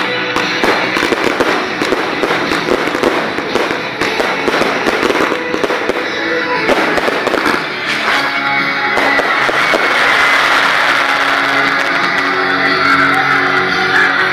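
Fireworks crackling and popping in quick succession, heard together with music. The crackle is densest in the first eight seconds or so, after which held musical notes stand out more.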